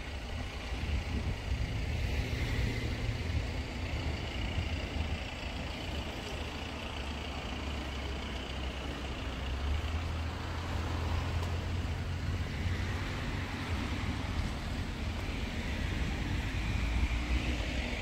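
Outdoor park ambience heard while walking: a steady low rumble with a faint high hiss above it.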